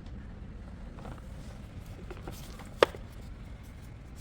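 Metal sockets clinking as they are handled and swapped while a socket size is tried on a manifold stud nut. A few small clicks come first, then one sharp clink nearly three seconds in.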